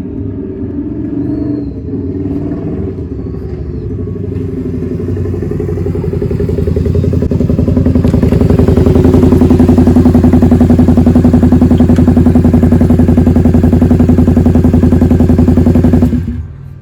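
1996 Honda V-Twin Magna 250's V-twin engine running through drag-pipe exhausts with a silencer insert fitted. It grows steadily louder for a few seconds, then holds a steady, deep, mellow note until it cuts off suddenly near the end.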